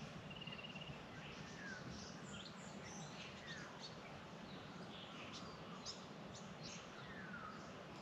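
Faint dawn chorus of wild bush birds: scattered short chirps with a few quick falling whistles, over a steady low background rumble.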